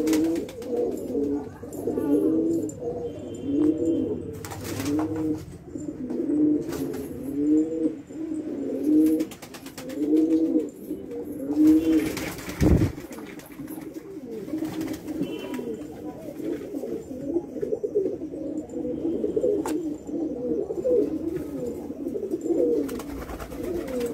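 Indian fantail (lakkha) pigeons cooing over and over. The phrases come at about one a second at first, then several birds overlap more densely in the second half, with a single low thump a little past halfway.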